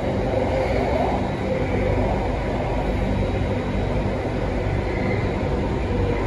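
Steady low rumble and running noise of a Singapore MRT Circle Line train moving through a tunnel, heard from inside the carriage.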